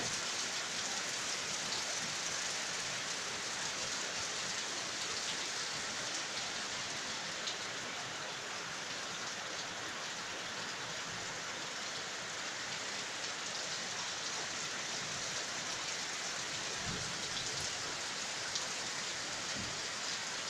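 Heavy rain pouring down steadily onto trees and foliage, an even, unbroken hiss.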